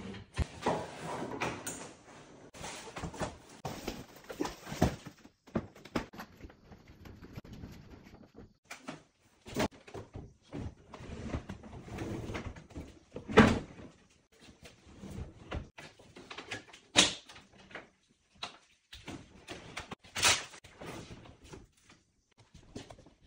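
Irregular knocks, clicks and thuds of kitchen cabinet fitting work, with stretches of scraping in the first few seconds. The sharpest knocks come about thirteen and seventeen seconds in.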